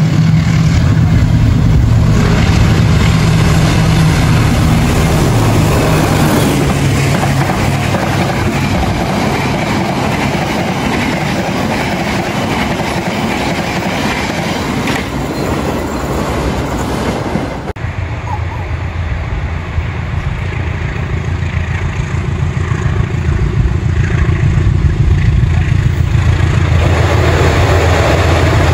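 Passenger train passing close at speed: a steady rumble of carriage wheels on the rails, with a low engine drone strongest in the first few seconds. After a sudden cut about two-thirds of the way in, a diesel locomotive approaches, its engine drone growing louder.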